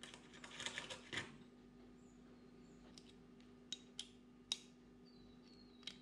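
Faint handling of a metal bicycle pedal and its cage: some rustling at first, then a few sharp, separate small clicks of metal parts and a tool knocking together as the cage is fitted back on.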